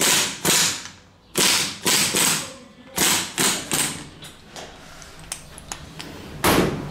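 Workshop tool noise from work on a scooter engine: short noisy strokes in quick groups of two and three, then lighter clicks and taps, and one more stroke near the end.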